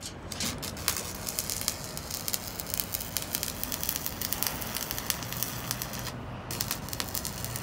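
Electric arc welding on steel: the arc crackles and sputters steadily, stops for about half a second near the end, then strikes again.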